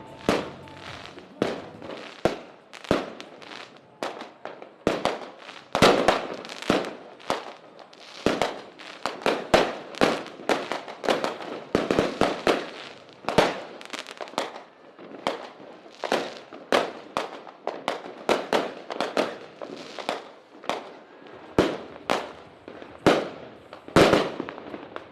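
Fireworks display: aerial shells bursting in a fast, irregular string of bangs, often several a second, each followed by a short echo.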